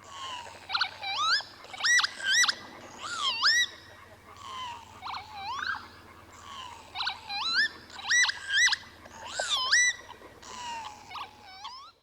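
Northern lapwings calling: repeated 'kie-wit' calls that sweep up and down in pitch, in two bursts with a short lull about four to six seconds in.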